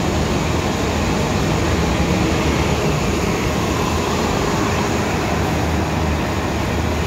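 Nova Bus LFSA articulated city buses driving off along a busy street: a steady, loud engine drone under a continuous wash of traffic and road noise.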